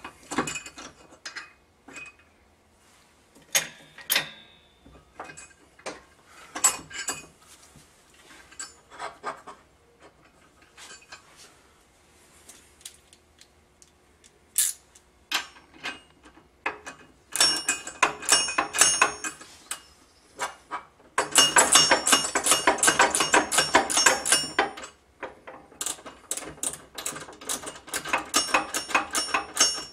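Scattered metal clinks of tools being handled, then three long runs of rapid, even clicking from a hand ratchet tightening the mounting bolts, the loudest near the end.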